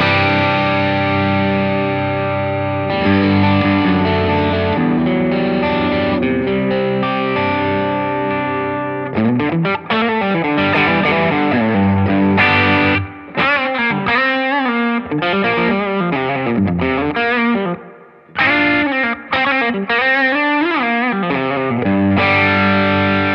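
Electric guitar played through a Laney Lionheart Foundry 60-watt tube combo on its clean channel, with a stompbox pedal switched on and the amp's own reverb. Held, ringing chords for about nine seconds, then single-note lead lines with string bends and vibrato, broken by two short pauses.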